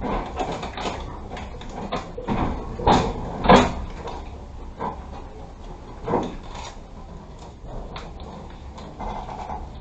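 Irregular knocks and clunks inside a passenger railway carriage over a low rumble, the loudest about three and a half seconds in.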